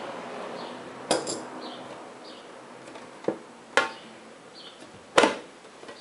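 Sharp metallic clicks and knocks from handling the AMD FX-8150's metal tin box while a blade works at its cardboard sleeve: about five separate clicks, the loudest near the end.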